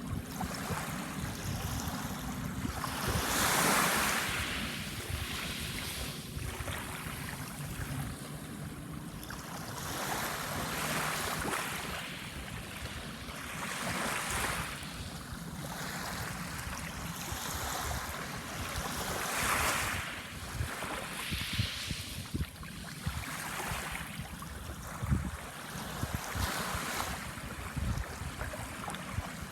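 Small waves breaking and washing up a sandbar shore, each swelling into a louder hiss every four to six seconds. A steady low rumble of wind on the microphone runs underneath.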